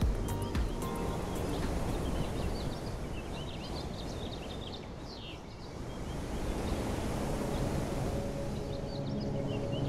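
A steady, noisy outdoor wash with scattered short bird chirps. Soft, steady music tones return near the end.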